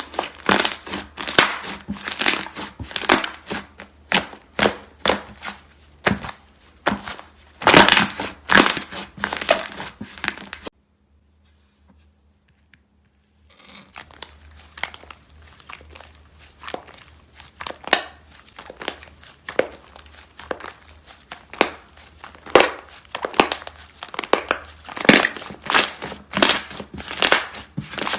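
Slime being squeezed, pressed and stretched, making dense crisp crackling and popping clicks. The crackling stops for a couple of seconds about eleven seconds in, then starts again.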